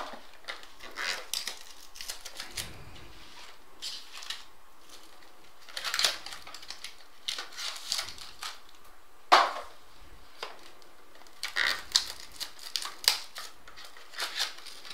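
Hands taking foil-wrapped trading card packs out of a cardboard box: scattered rustling, crinkling and light taps of cardboard and packs, with a few sharper knocks.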